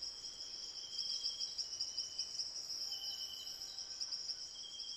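Outdoor insect chorus: a steady high-pitched trilling, with a second, lower trill starting and stopping a few times.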